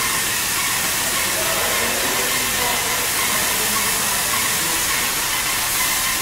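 Airless paint spray gun fed by a Putzmeister A 190 pump, spraying wall paint: a steady hiss.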